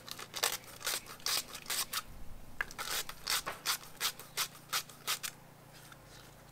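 Sandpaper rubbed by hand over the freshly cut edges of a short piece of 20 mm pipe, deburring them: quick rasping strokes, about four a second, that stop a little after five seconds in.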